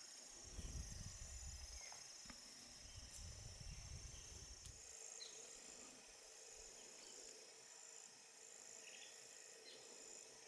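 Faint, steady chorus of insects chirring at a high pitch, with a low rumble during the first half.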